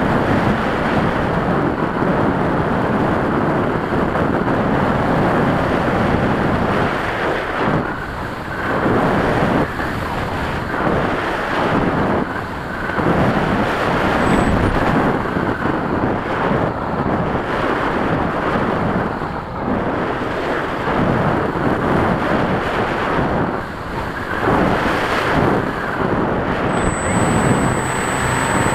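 Wind and motor noise rushing over the onboard microphone of a radio-controlled model airplane in flight, swelling and dipping every few seconds. A thin high whine starts near the end.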